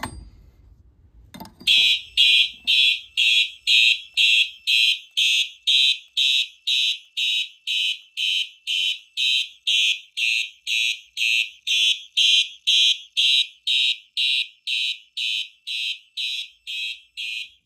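A manual fire alarm pull station clicks as it is pulled, and about a second and a half in, fire alarm horns start sounding in loud, even pulses, a little over two per second.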